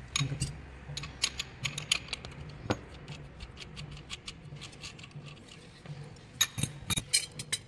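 Irregular light metallic clicks and clinks of a spanner and screwdriver working the bolts of an aluminium-cased electric motor, with a few louder clinks near the end.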